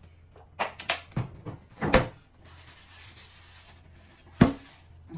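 Sharp knocks and clatter of dishes being handled for hand-washing, a few separate hits with the loudest about four and a half seconds in.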